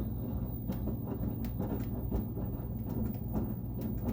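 LG commercial front-load washing machine, a residential machine with a coin mech fitted, spinning with a steady low hum while its drum knocks and rattles irregularly on its weak suspension.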